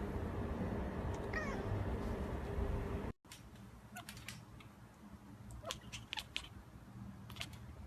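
A kitten gives one short meow over a steady hiss. After an abrupt cut, a few brief, faint squeaky calls and clicks follow.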